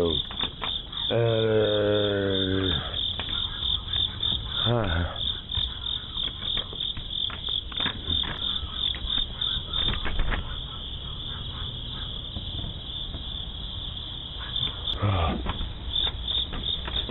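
Night insects chirping steadily in a fast pulsing trill, heard through a doorbell camera's microphone. A brief voice-like sound comes about a second in, and shorter ones near five and fifteen seconds.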